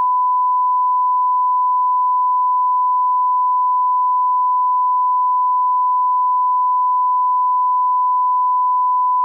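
Line-up test tone: a single steady pure tone at 1 kHz, unbroken and at constant level, as played with colour bars at the head of a tape.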